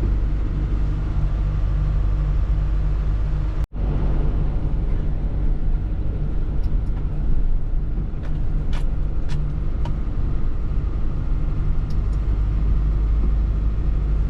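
A motor vehicle running, a steady low drone with road noise, cut off for a moment about four seconds in, with a few light ticks later.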